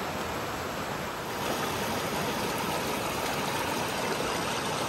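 Mountain creek running with snowmelt runoff: a steady rush of water.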